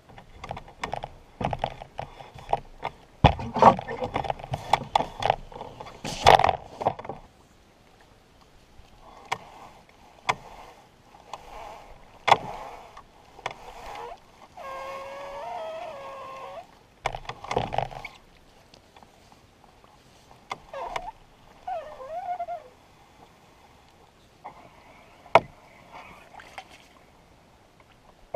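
Canoe being readied and pushed off through shallow reedy water: a dense run of knocks and bumps against the hull in the first several seconds, then scattered knocks and water swishing and sloshing. Two short wavering pitched sounds come about halfway through and again a few seconds later.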